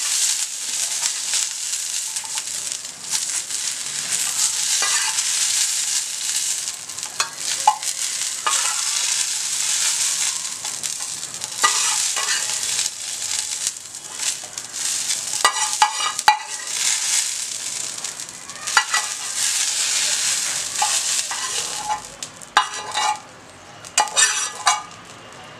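Green chillies sizzling in hot oil in a kadai while a metal spoon scrapes and clinks against the pan to scoop them out. The sizzling fades near the end as the pan empties.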